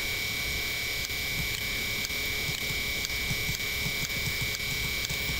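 Steady background hiss and hum with a constant high-pitched whine, the noise floor of the recording between spoken lines.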